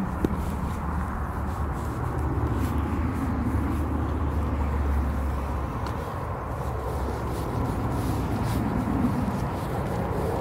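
Outdoor street noise with road traffic: a steady low rumble of a vehicle running, which drops away a little past halfway, over a general hiss of the street.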